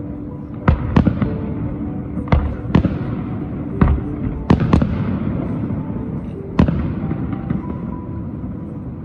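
Aerial firework shells bursting: about eight sharp bangs, some in quick pairs, over a continuous low rumble of the display.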